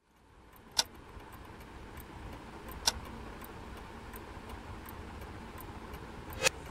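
A clock ticking steadily and faintly over a low, steady room hum, with three sharper, louder clicks spread through it.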